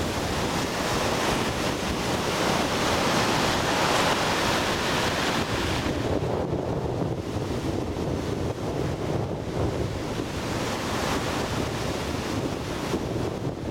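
Surf from a rough, wind-driven sea breaking and washing ashore, with wind buffeting the microphone. The hiss of the breaking water is strongest in the first half and thins out about six seconds in, leaving mostly the low rumble of wind and sea.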